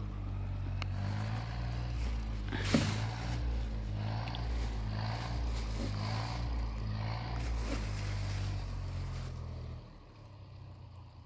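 A steady low motor hum, like an engine running, drops away about ten seconds in. A short splash about three seconds in comes from fish taking bread at the water's surface.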